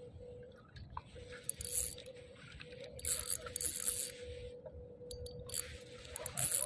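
Spinning fishing reel being cranked in three short spells, its gears whirring as line is wound in.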